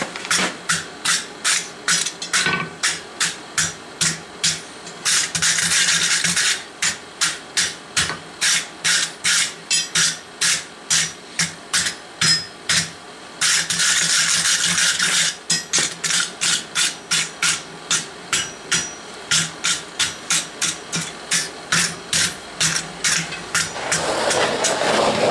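Hammer blows ringing on steel at an anvil, a steady rhythm of about three strikes a second, as iron stock for a campfire poker is forged. Twice the hammering stops for a second or two of rasping scraping.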